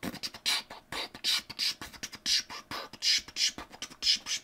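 A person beatboxing into a microphone: a quick rhythm of short, hissing snare and hi-hat sounds made with the mouth, about three a second.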